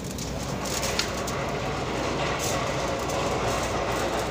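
DPP-160 blister packing machine running, a steady dense mechanical clatter over a low hum.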